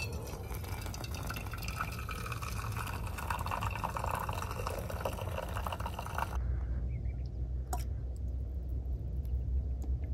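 Hot water poured from a camp-stove pot into a pour-over coffee filter on a steel mug, splashing and trickling onto the grounds. The pour stops abruptly about six seconds in, leaving a low steady rumble and one sharp click.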